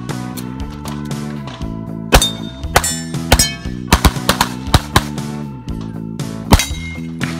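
STI Edge .40 pistol shots in quick pairs, starting about two seconds in, with short pauses between pairs, over a bed of background music.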